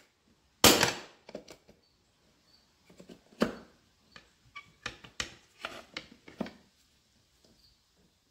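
Pry bar knocking against the steel rim and lock ring of a Firestone RH-5 multi-piece truck wheel while the ring is pried loose: a sharp clank just under a second in, another about three seconds later, then a run of lighter knocks and clicks.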